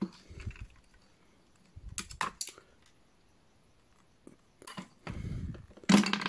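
Scattered small clicks and knocks of hard plastic toy parts and screws being handled, with a louder clatter near the end.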